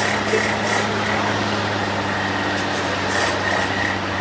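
Tatra 815 8x8 trial truck's diesel engine running at a steady low speed as the truck crawls slowly over dirt.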